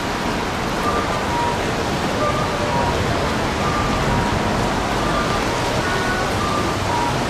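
Steady rushing noise with a repeating two-note electronic 'pi-po' beep over it, about one note every two-thirds of a second, typical of a Japanese pedestrian-crossing guidance signal.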